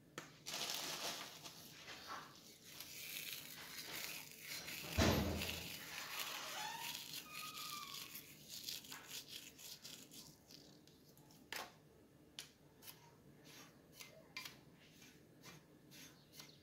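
Crinkling of a packet as dried herbs are shaken over a plate of breadcrumbs, with one dull thump about five seconds in. From about nine seconds on, a plastic spoon clicks against the ceramic plate as the crumbs are mixed.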